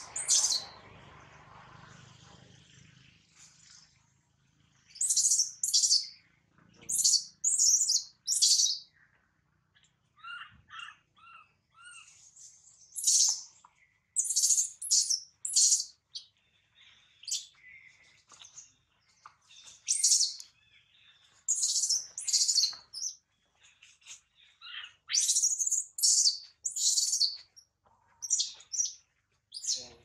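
Newborn long-tailed macaque crying for its mother with high-pitched, bird-like chirps in quick clusters of two to four, repeating every couple of seconds, with a run of four lower, quicker notes partway through. A brief rustling burst comes at the very start.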